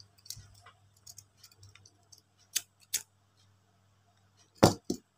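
Scissors snipping crochet yarn: a few sharp clicks, then a louder knock near the end.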